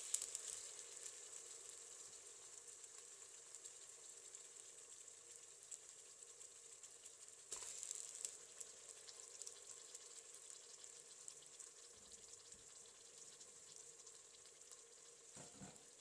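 Food frying in hot oil in a pan: a quiet, crackling sizzle that is loudest at the start, surges suddenly again about halfway through, and eases off after each surge.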